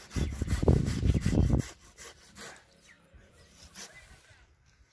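Hand pruning saw cutting back an apple tree limb for top grafting: rasping back-and-forth strokes with a loud low rumble under them. The sawing stops about a second and a half in, and a few faint strokes follow.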